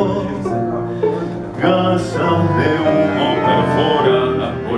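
Live song by a small acoustic ensemble: double bass, piano and strings, with a male voice singing into a microphone.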